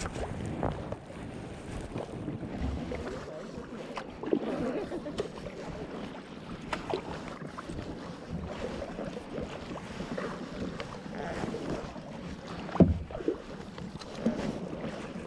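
A kayak on a fast-flowing river, with water splashing and irregular knocks against the hull and wind on the microphone. A sharp knock comes near the end.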